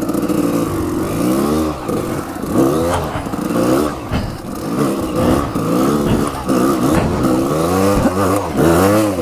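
Off-road motorcycle engine revving up and down over and over, its pitch rising and falling about once a second as the throttle is worked.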